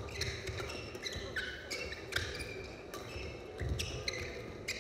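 Badminton doubles rally: a quick string of sharp racket hits on the shuttlecock, mixed with short high squeaks of court shoes on the floor, echoing in a large hall.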